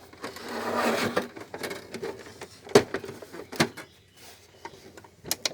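A VCR being slid and turned over on a surface: a scraping slide, then a few sharp knocks and clicks of its casing.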